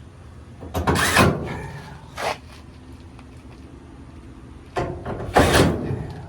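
Parts of a dryer being slid and handled during teardown: two loud sliding, scraping noises, about a second in and again near the end, with a short scrape between.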